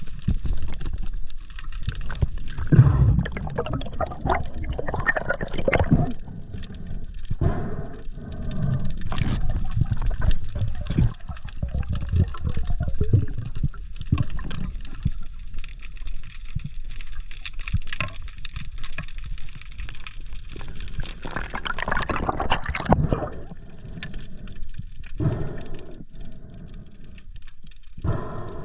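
Water sloshing and gurgling in irregular surges.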